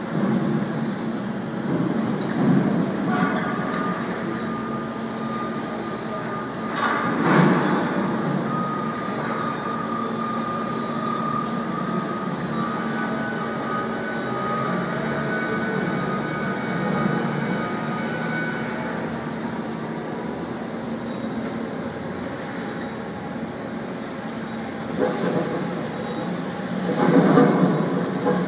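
Electric automated guided forklifts (AGVs) running: a steady hum with high motor whine, and louder clatters about seven seconds in and twice near the end.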